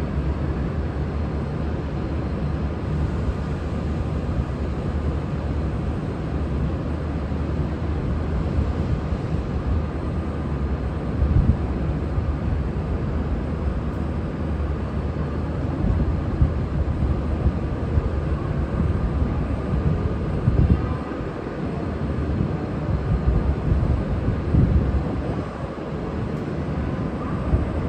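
V/Line N class diesel-electric locomotive's EMD 12-645 V12 two-stroke diesel running with a steady low rumble during a shunting move, with a few brief louder swells partway through.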